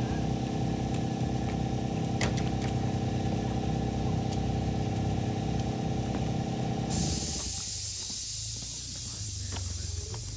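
A steady engine hum, which stops about seven seconds in and gives way to a steady hiss.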